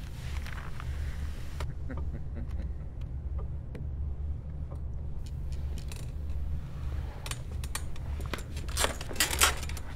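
Poker chips clicking against each other on the table: scattered light clicks, then a quick run of louder chip clacks near the end, over a low steady hum.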